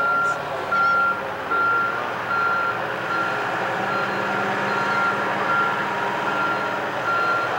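Back-up alarm on a large boat-handling forklift, beeping a steady high tone about once every 0.7 seconds as the forklift reverses with a boat on its forks. The forklift's engine runs underneath.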